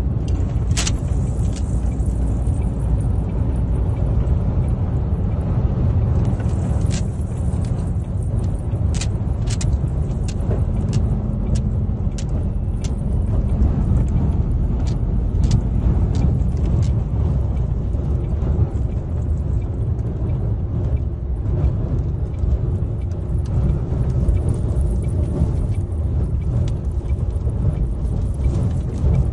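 Road noise inside a moving vehicle's cab in a sandstorm: a steady low rumble, with scattered sharp ticks through the first half.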